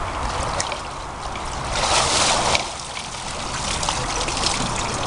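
Lake water splashing and sloshing as a person wades at the edge of a wooden boardwalk and hauls himself out. A louder rush of splashing about two seconds in cuts off sharply, followed by lighter trickling and dripping.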